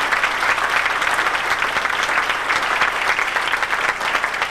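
Large indoor crowd applauding steadily, a dense patter of many hands clapping.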